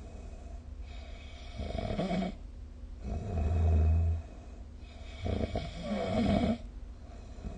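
A sleeping person snoring: three snores in an even rhythm, roughly every one and a half to two seconds, with quieter breathing between them. The snore about three seconds in is the loudest.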